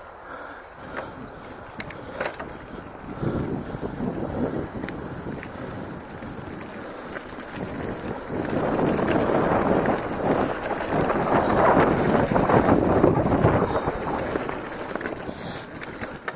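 Mountain bike rolling along a dirt single-track trail: tyre noise on the ground with the bike rattling over the bumps, a few sharp knocks in the first couple of seconds, and the noise growing loudest in the second half.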